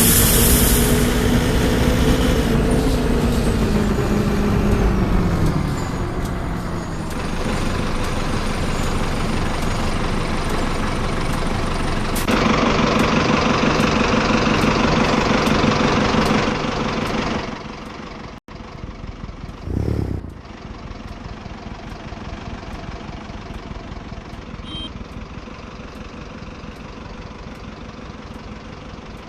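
Mercedes-Benz OF-1418 bus with its six-cylinder diesel engine: a sharp air-brake hiss at the start, then the engine slowing down over the next few seconds. It runs louder from about twelve seconds in, drops off abruptly a few seconds later, gives a short thump, and then runs more quietly and steadily, like an idle.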